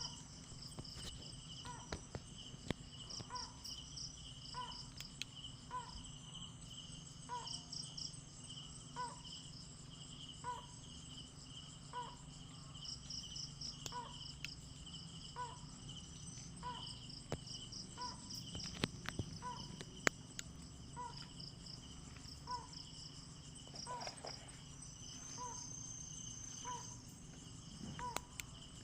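Night chorus of crickets and other insects trilling steadily, with a short, evenly repeated call a little faster than once a second from an unseen animal, the 'strange sound' in question.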